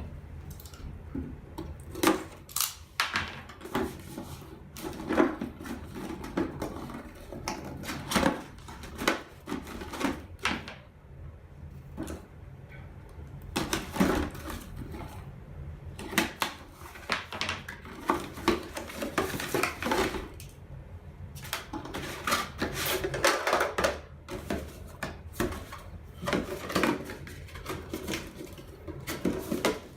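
Hands unpacking a boxed plastic baby shape-block set: repeated clicks and knocks of hard plastic pieces and the bucket being handled, mixed with rustling of the packaging.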